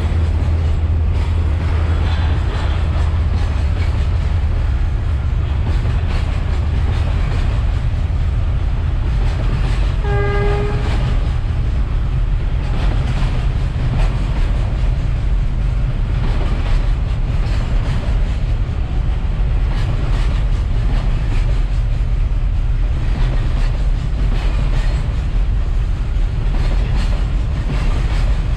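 Freight train of container wagons rolling past, a steady low rumble with the clack of wheels over rail joints. A single short horn blast sounds about ten seconds in.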